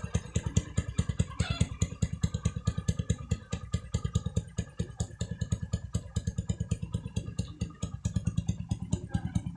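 Bajaj CT100's single-cylinder four-stroke engine idling through its stock exhaust pipe: a steady, even beat of exhaust pulses that holds the same speed throughout.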